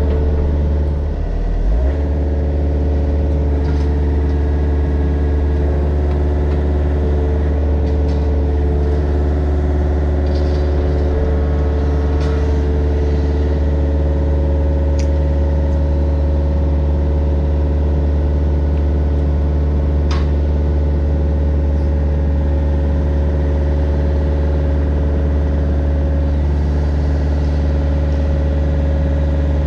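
Mini excavator's diesel engine running steadily under work, dipping briefly about a second in, with a higher whining tone above it that shifts in pitch a few times.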